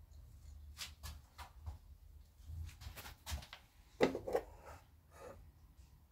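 A series of light plastic clicks and knocks, the loudest about four seconds in, as the hinged clear cover of a small plastic circuit-breaker enclosure is pulled open.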